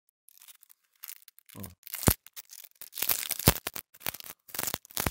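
Clear plastic bag crinkling and rustling as a paper instruction card is slid out of it, with a few sharp taps among the rustles.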